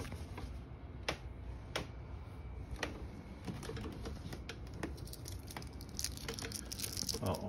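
Candy wrapper crinkling and crackling as it is batted and handled on the floor: scattered sharp clicks at first, growing into denser crackling in the second half.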